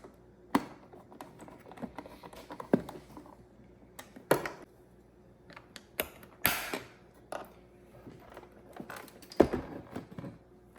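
Plastic housing parts of a Keurig K-Duo Essentials coffee maker being handled, fitted and screwed shut: irregular clicks and knocks with brief scraping, the sharpest knock near the end.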